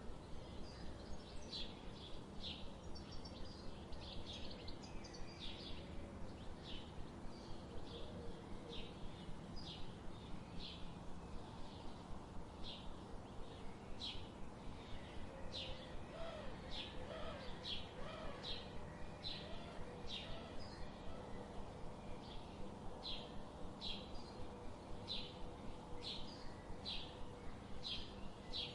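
Forest birds chirping: short, high chirps repeating every half second to a second, over a steady background hiss, with a fainter lower warbling call near the middle.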